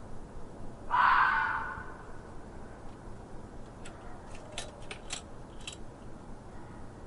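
A fox giving one loud call about a second in, lasting under a second and fading out, followed in the second half by a handful of faint, sharp clicks.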